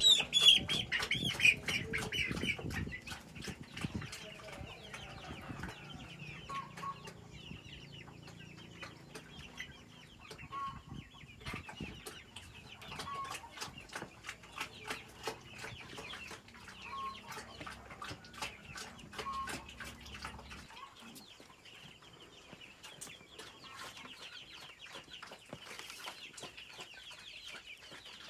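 Chickens clucking and calling, with a loud flurry right at the start, short calls every few seconds and many sharp ticks throughout.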